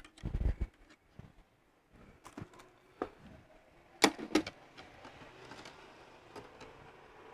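Handling noise of enamelled copper winding wire as coils are shaken loose and fed into the slots of a three-phase motor stator: a few dull knocks in the first second, scattered light clicks and wire rustling, and two sharp clicks about four seconds in.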